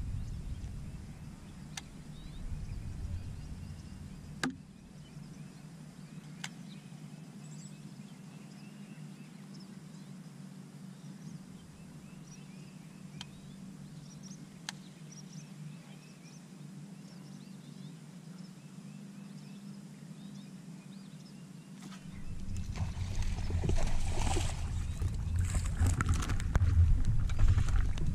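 Quiet open-water ambience on a bass boat: a steady low hum, faint chirps and a few light clicks of rod and reel. About 22 seconds in it turns louder, with splashing and rustling as a small bass is hooked and swung aboard.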